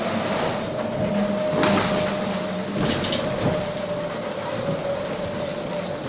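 Hull noise heard inside the enclosed cockpit of an IMOCA racing yacht sailing fast: a steady whining hum over a rumbling wash, with a few sharp knocks and clatters.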